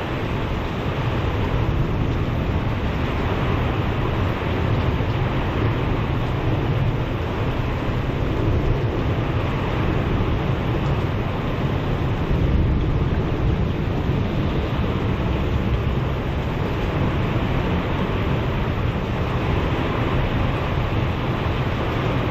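Heavy rain and high wind of a severe thunderstorm: a steady rushing noise with a deep rumble underneath.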